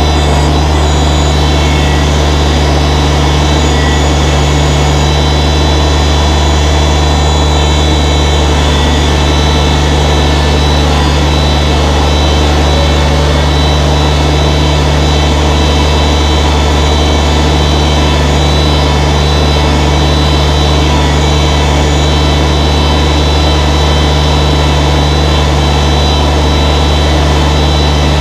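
New Holland tractor engine running steadily at a constant pitch, with a deep, even hum.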